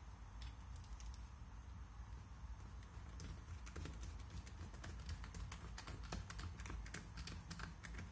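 Screws being driven into a shotgun's wooden fore end to hold down the fore-end iron: faint short clicks and ticks, sparse at first and then coming quickly from about three seconds in as the screwdriver turns, over a low steady hum.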